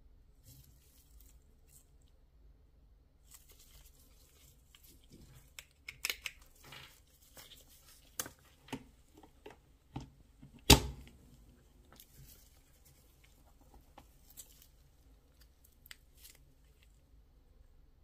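Handling noise from gloved hands moving a charger, cable and phone: rustling and scattered light clicks, a quick cluster of clicks about six seconds in, and one loud sharp click about ten and a half seconds in.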